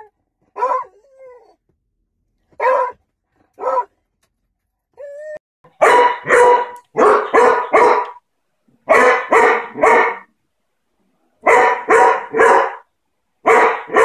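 Beagles barking: a few single barks, a brief whine about five seconds in, then loud barks in quick runs of three or four.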